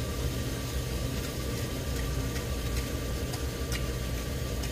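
Beef sizzling in a hot pan, an even hiss with a few faint pops, over a steady low hum and a thin steady whine.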